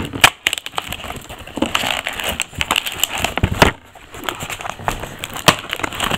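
Cardboard toy box with a clear plastic window being handled and pulled open close to the microphone: irregular crackling and rustling with sharp knocks scattered through it.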